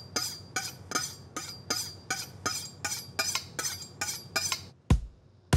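Metal knife blade worked in quick even strokes, about three a second, each stroke sharp with a short metallic ring. Near the end the strokes stop and a deep thump hits as music begins.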